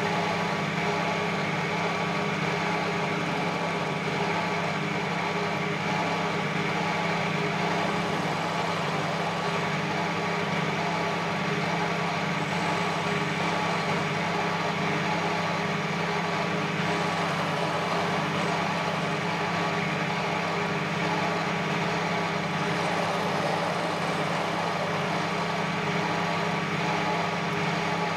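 Metal lathe running steadily, its motor and spinning chuck giving a constant hum with a thin steady whine, while a carbide insert tool takes a facing cut on the end of a small metal rod.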